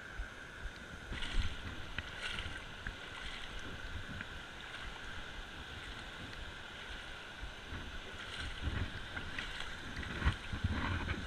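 Steady rush of water from a low weir across a creek, with a few brief knocks and rustles from a spinning rod and reel being handled.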